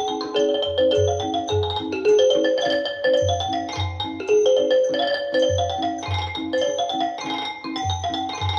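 Wilson Audio WATT/Puppy 7 loudspeakers playing music: a repeating melody of short, ringing mallet-percussion notes over a steady pulsing bass beat.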